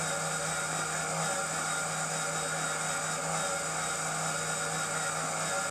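Small electric motor and gear drive of a model helicopter's multi-blade rotor running at a steady speed: a constant whine with a low hum beneath it. It cuts off suddenly at the end.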